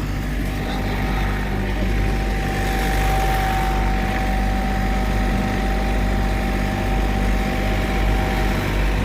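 Heavy paving machinery running steadily: a low diesel engine hum with a steady whine over it that stops shortly before the end.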